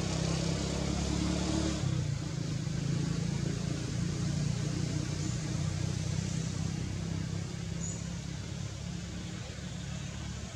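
Steady low drone of a motor engine running, holding at a constant pitch without revving.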